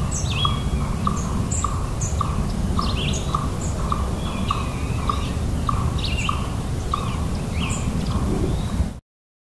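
An owl's short, even-pitched toot repeated about twice a second, with assorted songbirds chirping and whistling over it and a low background rumble. The sound cuts off suddenly near the end.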